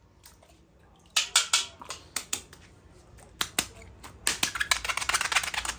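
Plastic wrapping crinkling as it is handled and opened. Irregular sharp crackles start about a second in and grow denser toward the end.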